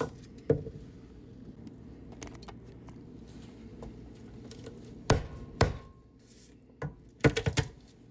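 Scattered sharp knocks of a knife on a cutting board as garlic is prepared. There are a couple of single knocks near the start, then a quick cluster of knocks in the last few seconds.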